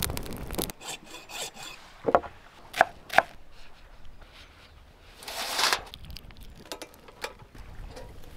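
Handling and rubbing of wood and tools: scattered scraping and small clicks, with three sharp knocks in quick succession two to three seconds in and a longer, louder scrape a little past the middle.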